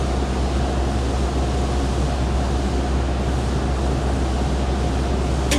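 A steady low mechanical hum over an even hiss, with a brief click near the end.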